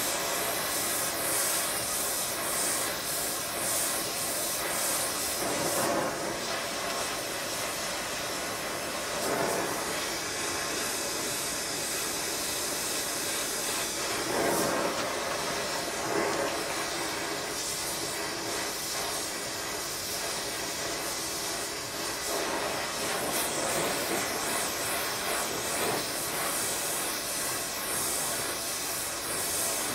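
Gas torch flame hissing steadily against a steel crank web, with a few brief swells in its sound. The web is being heated to expand its bore for a shrink fit.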